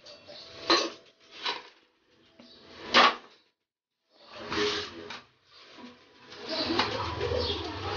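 Three sharp knocks of handling, spread over the first three seconds, then a brief clatter, with a low steady rumble rising near the end.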